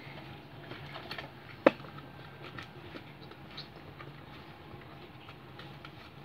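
Faint scattered clicks and light rustles of things being handled on a table, with one sharper click a little under two seconds in, over a low steady hum.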